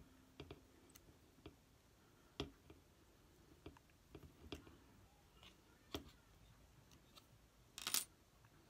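Faint, scattered clicks and taps of hands handling small screws and parts on an RC truck's front wheel hub, with a louder short clatter about eight seconds in.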